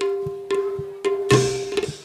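Live music from the seated ensemble: drum strokes about twice a second over one steady held note.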